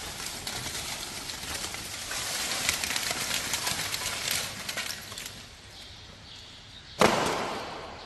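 Lumps of charcoal clattering and crackling as they are pulled by hand out of a steel-frame carbonization-furnace trolley into a sack, with many small clinks. It goes quieter for a moment, then a sudden louder rush of noise comes in near the end.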